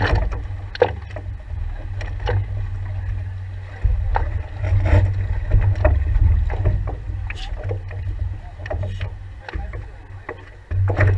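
Stand-up paddleboard on the water, heard from a camera on its deck: a steady low rumble with splashing and water noise, and many irregular knocks and scrapes as a dog shifts its clawed paws on the board.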